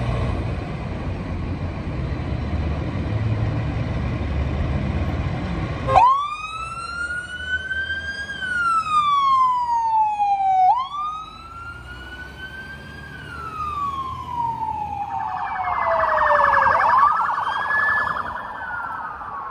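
A fire engine's engine running as it pulls out, then about six seconds in a siren starts, wailing up and down in slow sweeps of about four to five seconds. Near the end a second emergency-vehicle siren, an ambulance SUV's, takes over with a fast pulsing tone and a quicker rise and fall.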